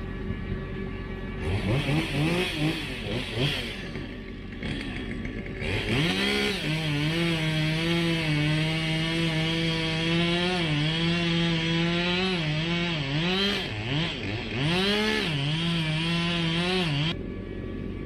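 Two-stroke chainsaw revving in short blips, then held at full throttle while cutting wood. Its pitch dips several times as the chain loads up and recovers, and it lets off about a second before the end.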